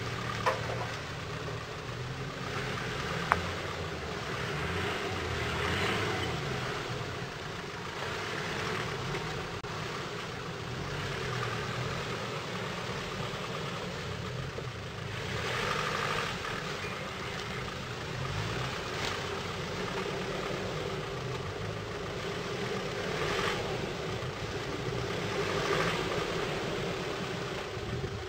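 Land Rover Defender 90 Td4 diesel engine running at low revs off road, the engine note rising and falling several times as it is worked. Two sharp clicks or knocks come in the first few seconds.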